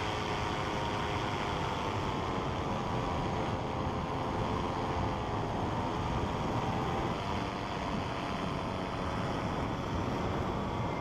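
Paramotor's two-stroke engine and propeller droning steadily in flight, its pitch sagging slightly around the middle and then recovering, with a rushing hiss of wind underneath.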